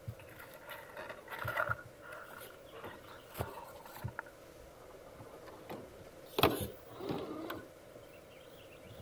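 Electric RC rock crawler (Traxxas TRX-4) crawling over rocks: a faint motor and gear whine with its tyres scraping and knocking on stone, and a louder knock about six and a half seconds in.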